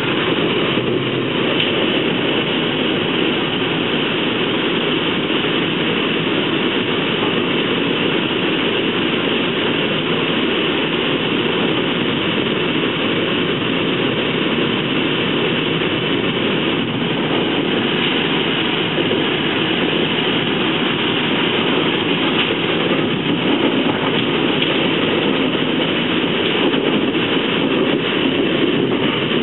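Steady running noise of a moving NJ Transit Multilevel (MLV) bilevel coach at speed, heard from inside the passenger car: an even rumble of wheels on rail.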